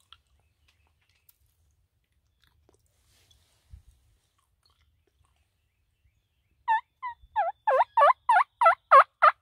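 A series of about ten loud turkey yelps near the end, coming quickly at about three a second, each note falling in pitch. Before that, near silence with one soft thump.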